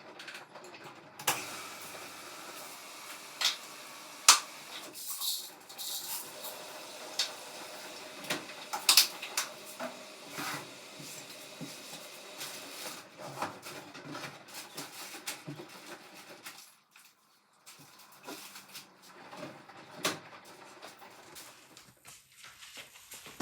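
Scattered sharp clicks and knocks over a low steady hum as a Bosch washing machine is set up and started.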